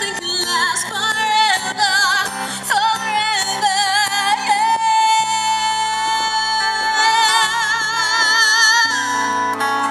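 Live band performing: a woman singing over acoustic and electric guitar accompaniment. She holds one long note with vibrato from about five seconds in until about nine seconds in.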